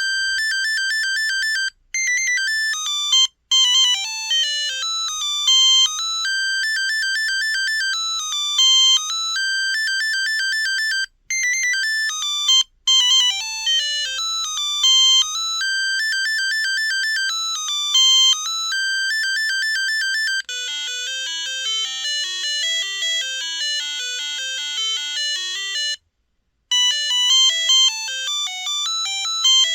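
Samsung Anycall SCH-X140 mobile phone playing its monophonic ringtones: simple beeping melodies, one note at a time, with a few short breaks. About two-thirds of the way through, a different, busier tune with lower notes takes over.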